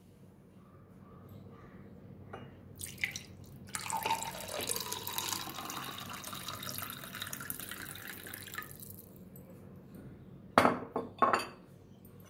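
Hot milk poured into a tall glass tumbler, a steady splashing pour lasting about five seconds, followed near the end by a few sharp clinks of glass.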